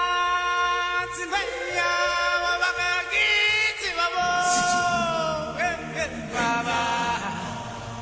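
Vocal music: singing with long held notes that waver with vibrato, the pitch sliding slowly down partway through.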